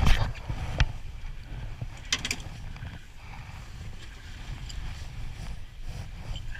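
Steady low rumble aboard a small aluminium fishing boat, with a few sharp knocks and clatters in the first couple of seconds.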